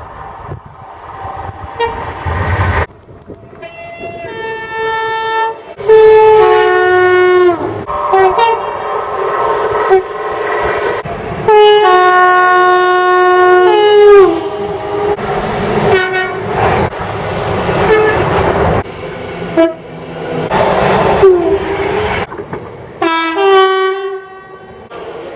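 A string of train horns, one clip after another. Several are two-tone horns that step from a high note down to a low one, and the sound changes abruptly between clips.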